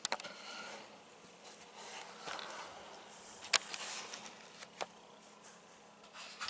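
Sharp clicks and rustles of a handheld camera being handled and turned, the loudest click about three and a half seconds in, over a faint steady buzz.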